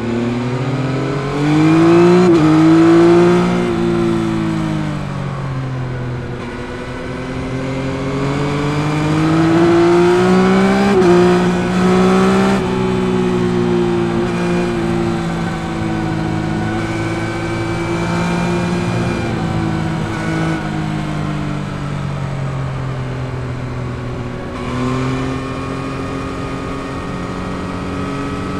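2021 Yamaha MT-09's 890 cc CP3 three-cylinder engine on the move, its revs climbing and falling over and over as the bike accelerates and slows, with a sudden drop in revs about twelve seconds in.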